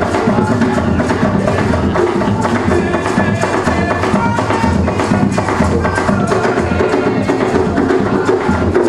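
Music of hand drums and other percussion playing a dense, steady rhythm.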